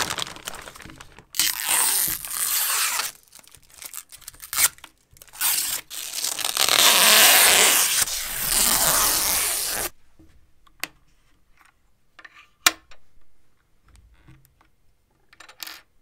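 Clear plastic bag crinkling and rustling loudly in long stretches as a mechanical keyboard is slid out of it, stopping about ten seconds in. After that, a few light, separate clicks and taps from handling the keyboard's plastic parts.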